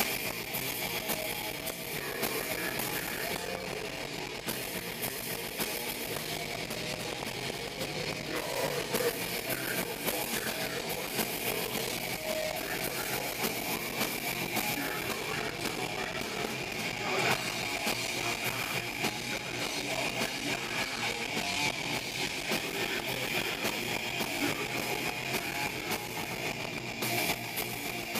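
Live metal band playing: distorted electric guitars and a drum kit in one dense, unbroken wall of sound.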